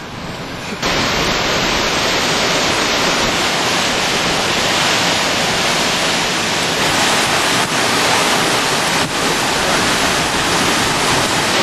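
Hurricane-force wind and driving rain, a loud, steady rush of noise with wind buffeting the microphone. It starts abruptly about a second in.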